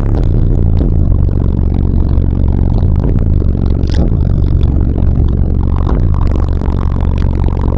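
Bass-heavy music played very loud through a car's twelve DD Audio 3500 12-inch subwoofers, with deep sustained bass notes and the car's body rattling and buzzing along.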